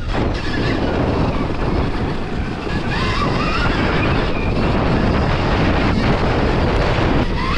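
Heavy wind buffeting on the microphone of an onboard camera riding a Stark VARG electric motocross bike, with the faint whine of its electric motor rising in pitch a few times as the throttle is worked.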